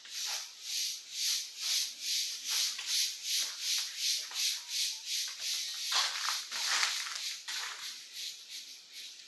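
Footsteps crunching on loose ground, about two or three steps a second in a steady walking rhythm, a little louder around the middle.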